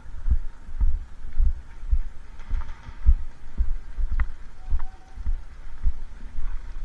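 A steady series of low thuds, about two a second, like rhythmic knocking or handling bumps on the microphone.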